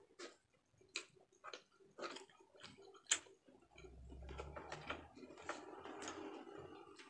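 Faint close-up eating sounds of chewing with wet mouth clicks about twice a second. About halfway through comes a longer stretch of crackling and rustling with a brief low thump, as fried fish is picked apart by hand and chewed.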